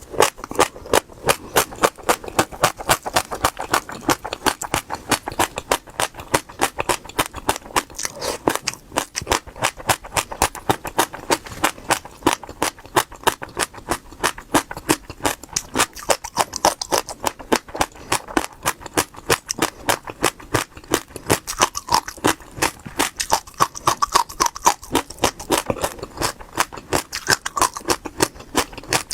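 Seeds being chewed close to the microphone: a steady run of crisp crunches, about four a second.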